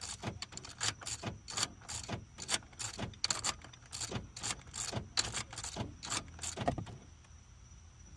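Keys and key fob handled in the hand, jangling and clicking irregularly several times a second, stopping about seven seconds in.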